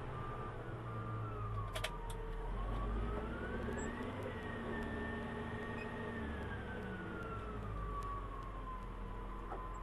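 Cat 966G wheel loader's six-cylinder diesel and hydraulics heard from inside the cab: the engine's whine rises in pitch as it revs to lift the bucket, holds, then falls back over several seconds, over a steady deep rumble. A pair of sharp clicks about two seconds in.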